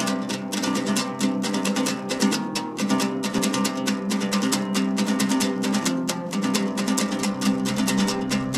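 Music: a plucked string instrument strummed rapidly and steadily over held low tones, with a deeper bass coming in near the end.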